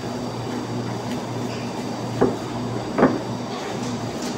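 Two short knocks on a cutting board, about a second apart near the middle, as beef is cut and the pieces are handled, over a steady low hum.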